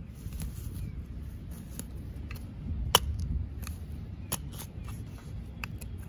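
A narrow metal hand trowel scraping and chopping into soil among grass roots. It makes irregular scrapes and clicks, with one sharper click about three seconds in.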